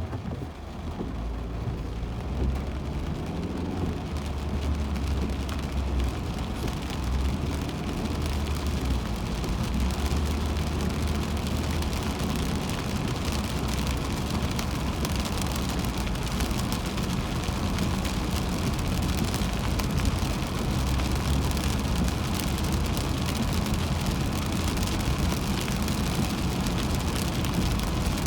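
Rain hitting a moving car and tyres hissing on a wet highway over a steady low road rumble, heard from inside the car. The rain noise builds over the first few seconds, then holds steady.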